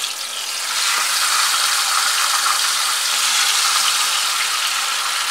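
Masala-coated leg of mutton sizzling steadily in hot oil in a frying pan, the sizzle thickening over the first second after it is laid in.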